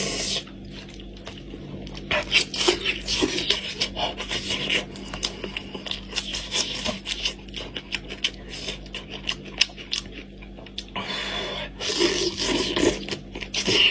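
Close-miked eating sounds from a sauced goat head: meat torn apart by hand, and wet chewing, lip-smacking and sucking in many quick irregular clicks, with a denser, noisier stretch about eleven seconds in.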